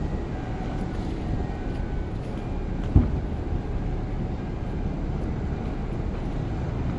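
Steady low rumbling noise, with one sharp thump about three seconds in.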